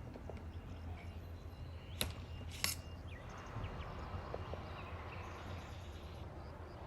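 Two sharp clicks about half a second apart over a steady low hum.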